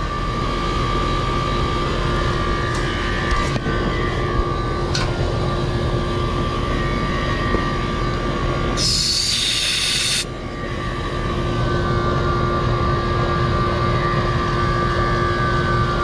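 A 4-ton R-410A outdoor condensing unit running, its compressor giving a steady hum with two constant tones, a sound the tech calls horrible. About nine seconds in, a sharp hiss of gas escapes from the yellow charging hose for about a second and a half.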